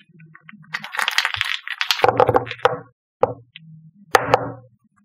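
Small plastic acrylic paint jars with screw caps clattering against each other in the hands, then a series of knocks as they are set down one by one on a paper-covered table, the last about four seconds in.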